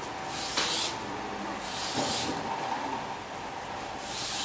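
A blade being sharpened in strokes across sandpaper on a strop, each stroke a rasping hiss. There are three strokes, the last starting near the end after a pause.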